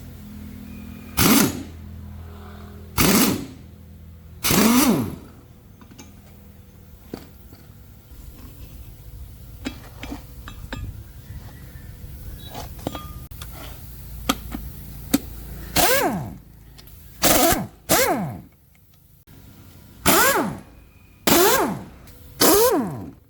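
A power tool run in about nine short bursts, each winding down in pitch as it is released, with scattered sharp metallic clicks between the bursts.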